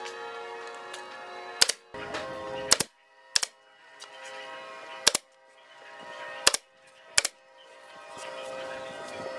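Pneumatic brad nailer firing nails into a pine shelf unit: six sharp shots at uneven intervals, over background music.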